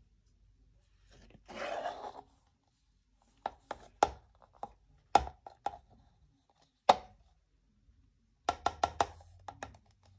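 Plastic paint cup handled on a tile during an acrylic flip-cup pour: a short scrape about two seconds in, then scattered sharp clicks and taps, and a quick run of clicks near the end.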